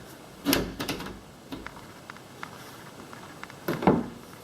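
Interior bedroom door being swung and pushed shut, with clicks and knocks from its latch against the strike. The latch barely catches.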